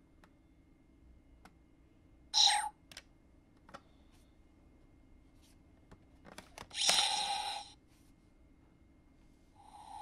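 CSM V Buckle toy belt: small clicks, then a short electronic sound effect about two and a half seconds in, its standby 'ready' sound after the card-detection button is held. Plastic clicks as the contract card is pulled out are followed by a louder electronic card-removal sound effect lasting under a second, and near the end a steady electronic tone begins, the belt's wind sound effect.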